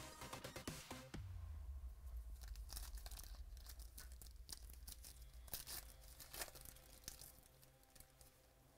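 Faint crinkling and tearing of a trading-card pack wrapper being opened, with scattered light crackles from the cards and wrapper being handled.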